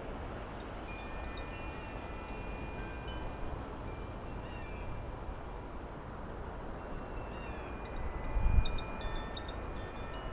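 Metal wind chimes ringing in the breeze: several long-ringing tones at different pitches that overlap and fade. Wind rumbles on the microphone throughout, with a stronger gust near the end.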